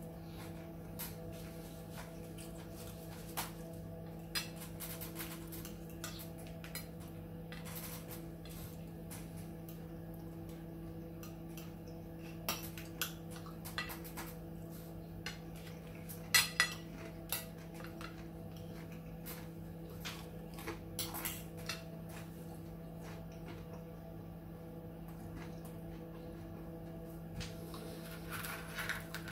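Metal fork scraping and clinking against a ceramic plate, in scattered taps with the loudest cluster about halfway through, over a steady low hum.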